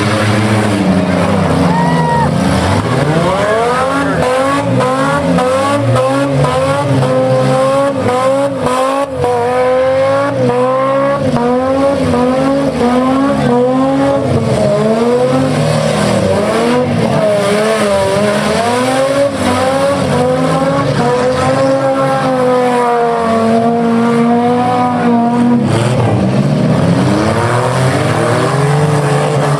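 Engines of several six-cylinder demolition derby cars, revving up and falling back over and over as the cars drive and ram, with a few knocks of cars hitting each other.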